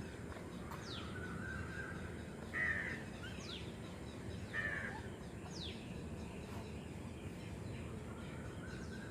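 Birds calling: quick downward-sliding whistles repeated every second or two, and two short harsh calls about two seconds apart, over steady background noise.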